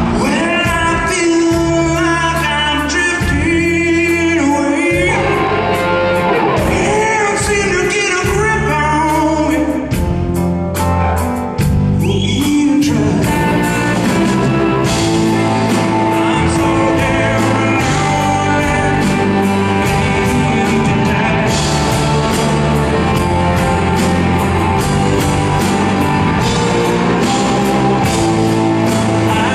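A live blues-rock band plays a slow song: a male voice sings over electric guitar, bass guitar and drums. About twelve seconds in, the singing gives way to the full band playing a little louder, with sustained guitar notes and cymbals.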